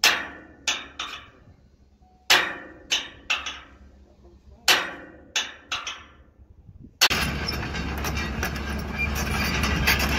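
Hand hammer striking metal at a tower crane mast's anchor-bolt base: about ten ringing blows in three quick groups. About seven seconds in, these give way to the steady running of an excavator's diesel engine.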